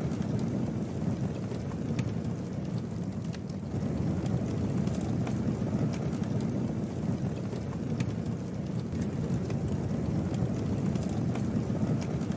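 Campfire burning: a steady low rumble of flames with occasional sharp crackles and pops from the wood.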